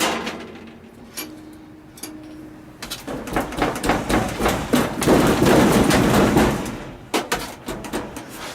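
A broken laundry machine being knocked and rattled: a sharp knock, a faint steady hum, then several seconds of loud clattering and banging on its metal body, with a few separate knocks near the end.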